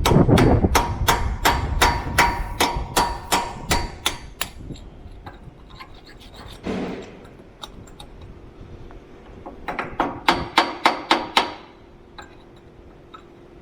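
Rapid hammer blows on steel, about four a second, in two runs, the second shorter, with a faint metallic ring after each: driving a frame rivet out of a truck frame after its head has been torch-cut.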